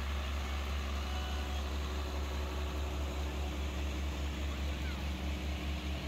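John Deere 4440 tractor's six-cylinder diesel engine running as the tractor rolls past at slow parade speed: a low steady rumble that grows uneven and pulsing near the end as it moves on.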